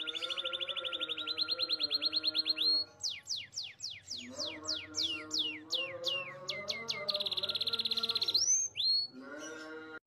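Canary singing: a fast rolling trill of about ten notes a second that climbs slightly in pitch for nearly three seconds, then a run of quick down-slurred whistles, a second rapid buzzy trill, and a couple of upswept notes near the end.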